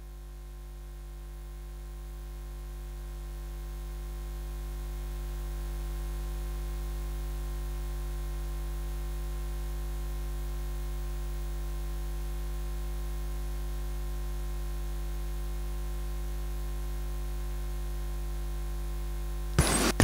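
Low steady hum that grows louder over the first few seconds and then holds, with a sudden loud burst of noise just before the end.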